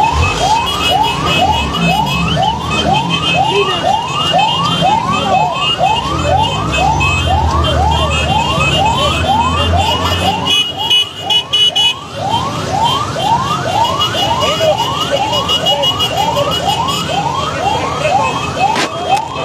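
Vehicle siren in a fast yelp, its pitch sweeping up over and over at about two sweeps a second, with a low engine rumble under it through the first half.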